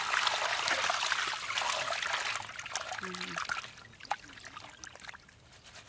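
Water pouring in a stream onto beef intestines in a plastic colander inside a metal basin, splashing as hands rub them clean. The pour stops a little after two seconds in, leaving smaller splashes and drips.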